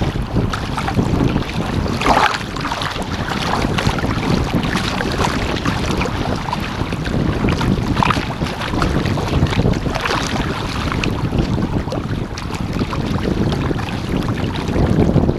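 Strong wind buffeting the microphone over choppy water, with water splashing against the surfski's hull a few times.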